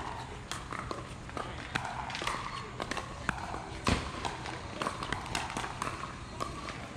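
Pickleball rally: repeated sharp pops of paddles striking a plastic pickleball at irregular intervals, the loudest hit about four seconds in, with shoes moving on the hard court.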